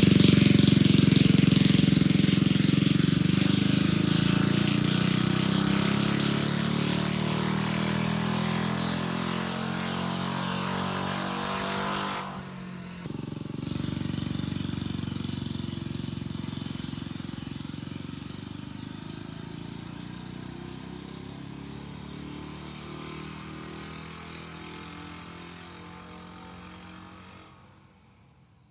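99cc Coleman single-cylinder mini bike engine running as the bike rides away, first through a bare straight-pipe exhaust, loud and fading with distance. About thirteen seconds in it is heard again through an RLV Mini 91 slip-on silencer, starting quieter and fading away until it is barely audible near the end.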